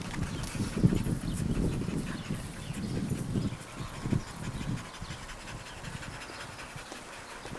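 A dog panting close by, dying down after about four seconds.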